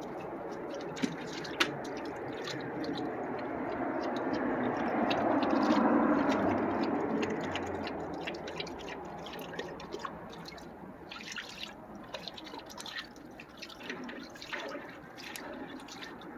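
A dog lapping water from a swimming pool: quick, irregular wet licks and drips. A low rumble swells and fades around the middle.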